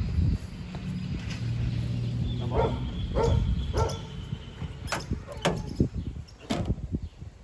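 A dog barking three times in quick succession, then several sharp knocks.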